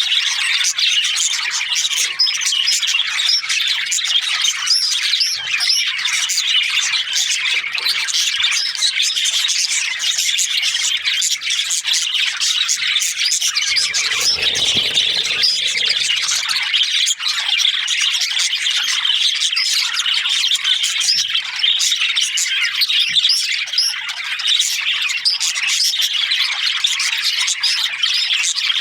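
A group of budgerigars chirping without pause, many birds calling over one another.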